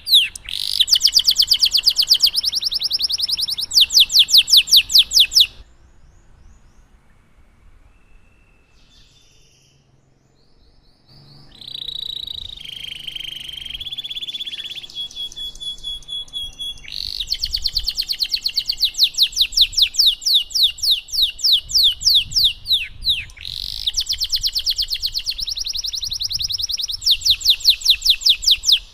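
Domestic canary singing in long, loud runs of very fast, high trills, each a rapid string of repeated down-sweeping notes. About five seconds in the song stops for several seconds, then comes back as a softer, buzzier phrase before the fast trills resume.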